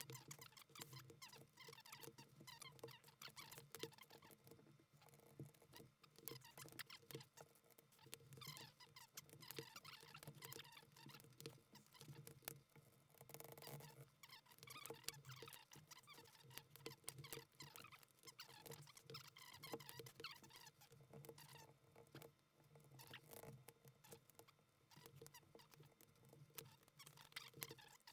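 Dense, irregular small plastic clicks and taps from keycaps being pulled off and pressed onto the Cherry-style stems of a mechanical keyboard, sped up.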